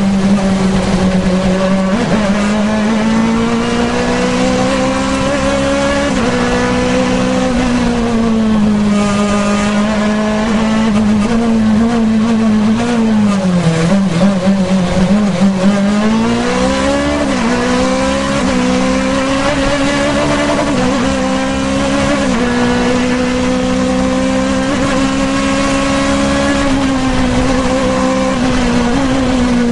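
Osella CN2 sports prototype's 2-litre racing engine heard close up from onboard, pulling hard up a hillclimb, its pitch climbing and stepping back with each gear change. About halfway through it drops low and wavers as the car slows for a tight hairpin, then climbs steadily again as it accelerates out.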